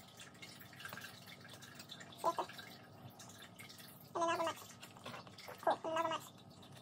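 A person's voice making four short, quiet hums or murmurs, with faint small clicks of handling between them.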